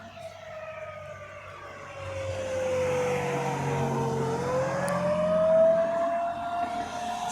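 Outdoor tornado warning siren sounding a long, steady tone that slowly sinks in pitch and then climbs back up. A broad rushing noise swells in over it from about two seconds in and is loudest near the end.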